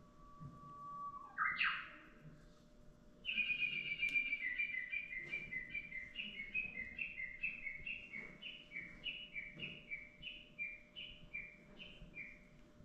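Recorded Japanese bush warbler (uguisu) song played from an exhibit's speaker. A long held whistle ends in a quick rising flourish, then a long run of short repeated notes follows to the end.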